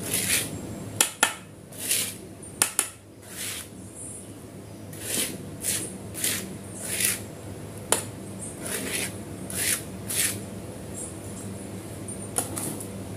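Silicone spatula scraping ground garlic paste off a rough stone mortar (cobek) in a series of short scrapes, about one a second, with a few sharp clicks among them.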